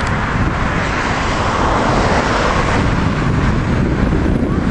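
Wind buffeting the camera's microphone: a steady, loud rumbling roar with a fluttering low end.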